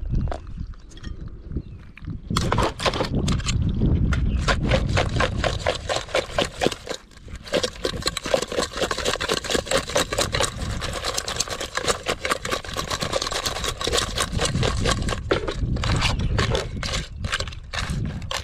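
Crab shells and a metal utensil clattering and scraping in an aluminium cooking pot as whole crabs are packed in over chopped vegetables, a dense run of clicks starting about two seconds in and thinning to scattered clicks near the end, over a steady low rumble.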